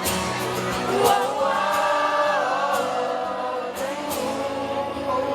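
Live pop song: male voices singing long held notes over a backing band, with regular drum and cymbal hits.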